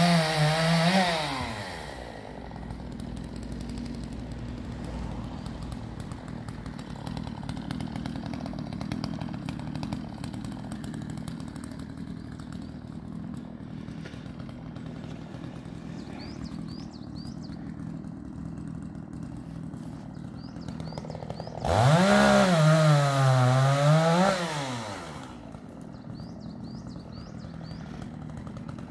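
Petrol chainsaw revving up and down, then idling steadily for about twenty seconds. It revs hard several times again about three-quarters of the way through before dropping back to idle.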